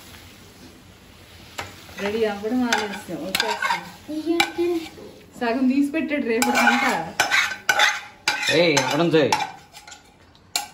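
Metal spatula stirring and scraping cooked chicken around a frying pan, then scraping it out onto a plate: a run of scrapes, clinks against the pan and squeaky scraping strokes, starting about a second and a half in and easing off near the end.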